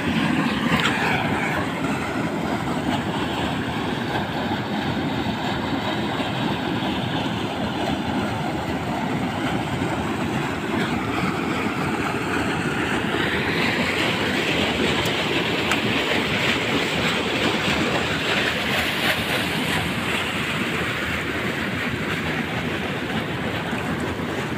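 A water stream flowing steadily, a continuous rush of water.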